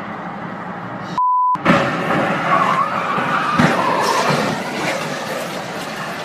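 A censor bleep a little over a second in, then a loud crash as a dump truck with its bed raised strikes a highway sign gantry and overturns. Sharp knocks give way to a long scraping and skidding noise that slowly dies away, heard from inside a following car.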